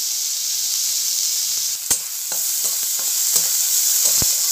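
Chopped onions sizzling in hot oil in a kadai: a steady frying hiss, with a few sharp knocks of the spatula against the pan as they are stirred.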